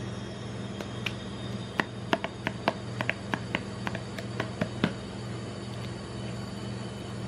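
Gloved fingers tapping on a large glass Nutella jar and its plastic screw lid: about a dozen quick, uneven taps over roughly three seconds, over a steady low hum.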